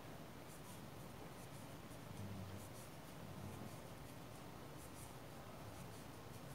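Faint scratching and swishing of a crochet hook drawing amigurumi yarn through as single crochet stitches are worked, a light stroke about twice a second at an uneven pace, over a low steady hum.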